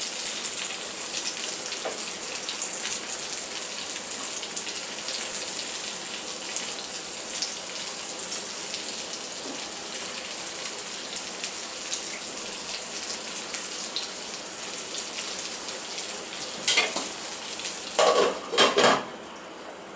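Stuffed green chillies frying in oil in a kadhai, a steady sizzle with fine crackling. Near the end come a few louder clattering bursts, and then the sizzle falls off.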